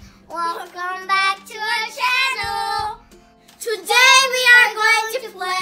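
Children singing loudly in drawn-out, held notes, with a short pause about three seconds in.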